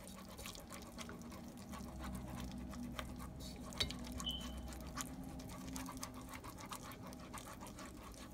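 Stirring utensil scraping and clicking against a nonstick pot as a thick roux of butter, flour and milk is worked, with a sharper knock a little under four seconds in.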